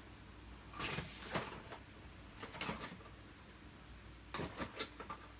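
Handling noise: a scattered series of light clicks, knocks and short scrapes, with a small cluster about a second in and another near the end.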